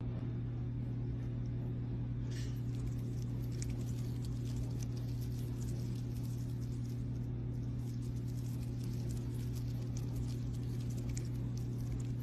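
Clear water beads crushed onto the brass pins of two kenzan flower frogs, with many fine, rapid crackles and ticks, over a steady low hum.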